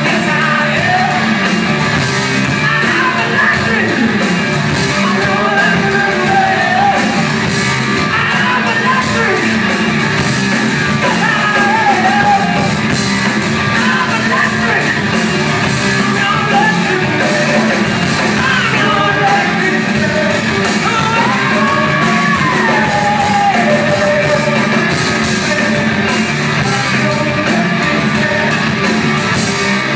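Hard rock band playing live and loud: electric guitars, bass and drums, with a male singer's wailing vocal lines over them, heard from within the crowd in a concert hall.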